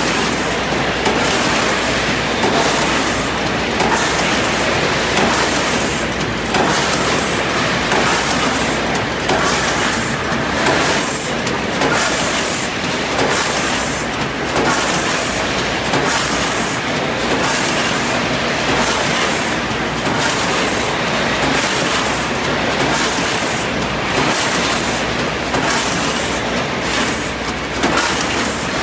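Rotary premade-pouch packaging machine running, a loud steady machine noise with a hiss that breaks off briefly about once a second as it cycles.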